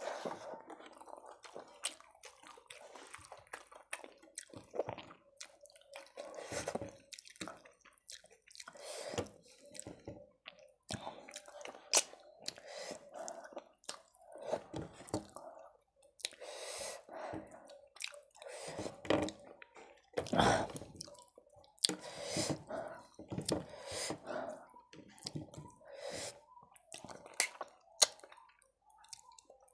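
A person chewing mouthfuls of rice and fish curry close to the microphone, with irregular short wet clicks and mouth noises.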